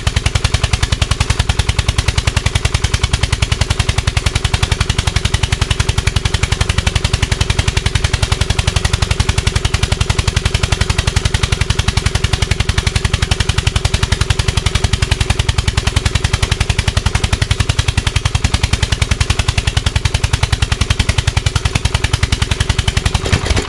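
Lawn tractor's overhead-valve engine running with a rapid, even firing beat that holds at one low speed even at full throttle, then shuts off at the very end. It runs too rich and won't rev up; the owner puts it down to valve trouble in the cylinder head.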